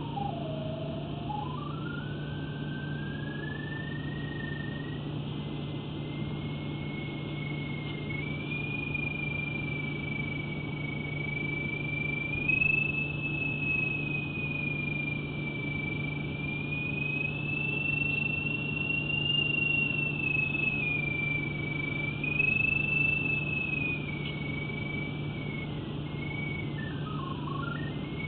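Pipe-locator receiver's single electronic tone tracking a sewer camera head's sonde, gliding slowly up and down in pitch as the signal strength changes. It dips low near the start and again near the end and stays high in between, over a steady low hum.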